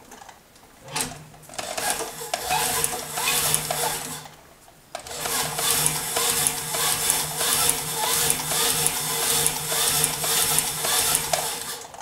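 Claes open-arm industrial sewing machine stitching the seam at the bottom of a boot zipper. Its motor hums under rapid, even needle strokes. It starts about a second in, stops briefly around four seconds, then runs steadily again until near the end.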